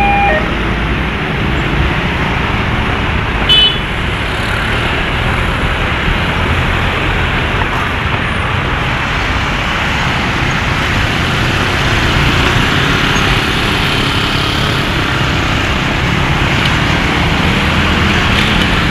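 Steady, continuous vehicle noise, with a short high-pitched toot about three and a half seconds in.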